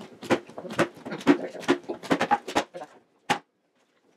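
Plastic water bottle being flipped and knocking down on a wooden table: a quick run of short knocks, about two or three a second, then a pause about three seconds in broken by a single knock.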